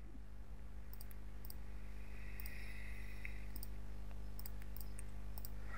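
Several faint, scattered clicks, typical of a computer mouse clicking, over a steady low electrical hum.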